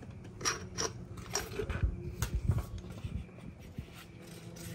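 Rear shock absorber top-mount parts (washers, bump stop, mount pieces) being handled and set down one by one on a concrete floor. Irregular light clicks and knocks, with a few duller thumps about two seconds in.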